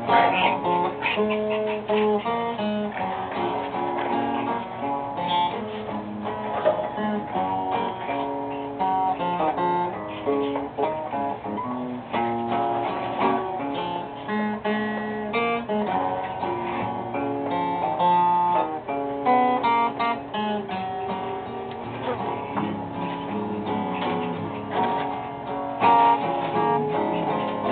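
Background music: a guitar playing a continuous run of notes and chords.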